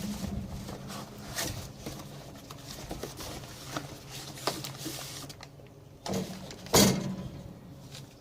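Metal grill parts being rummaged through and handled: scattered light knocks and clanks, then two louder clanks about six to seven seconds in, the second ringing briefly.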